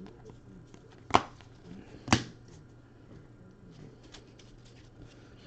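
Baseball trading cards being handled and sorted by hand: faint rustling and light clicks of card stock, with two sharp snaps a second apart, a little over a second in.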